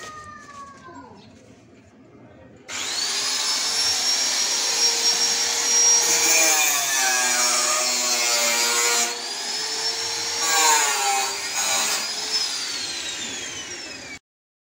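A high-speed electric power tool starts about three seconds in, its whine climbing as it spins up. It runs loud and steady, the whine dipping twice as if under load, then falls in pitch as it winds down near the end.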